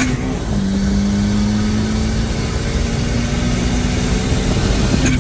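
Turbocharged Honda F20B engine in a 2002 Accord pulling under way, over heavy road and wind rumble. Its pitch drops sharply just after the start, then holds nearly steady, rising only slightly.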